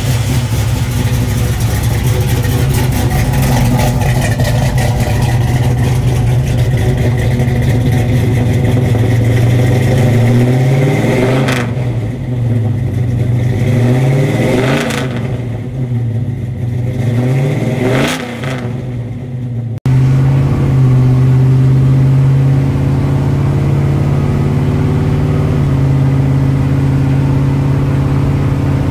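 A 1982 Chevrolet C10's 350 V8 through its dual exhaust: idling steadily, then revved three times, each rev rising and falling back to idle. After a cut the same engine drives on the road, a steady drone whose pitch steps twice.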